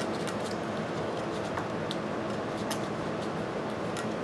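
Faint, scattered scraping ticks of a razor blade trimming half-cured body-filler putty off a part, over a steady hum of room noise.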